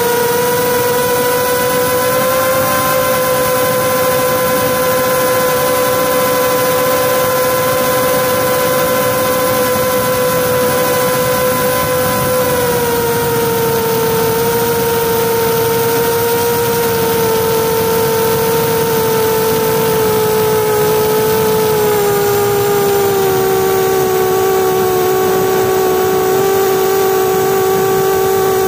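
A drone's electric motors and propellers whining steadily in flight, heard loud and close from its onboard camera. The pitch steps down slightly twice, about halfway through and again near the end.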